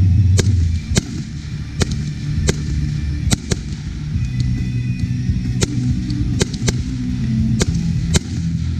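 Firework cake firing shots one after another, a sharp report roughly every second, with the stars bursting overhead. Under it runs background music with a low bass line.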